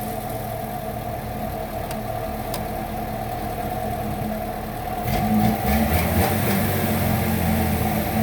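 1980 MGB's 1.8-litre four-cylinder B-series engine running just after a cold start, getting louder and fuller about five seconds in.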